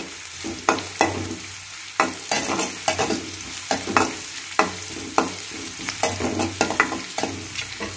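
Metal spatula scraping and knocking against a metal kadai, stirring chopped onions frying in oil, in repeated strokes over a steady sizzle. The onions are being fried in a little oil as the first stage of a tempering (oggarane).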